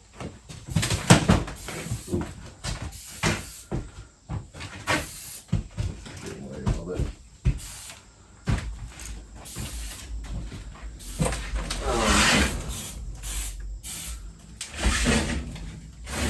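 Irregular knocks, bumps and scrapes of old things being handled and shifted about, with a few bits of indistinct talk.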